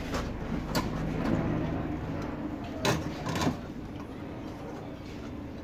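Clicks and knocks of hoses and the plastic air-filter housing being handled in a car's engine bay, loudest twice about three seconds in.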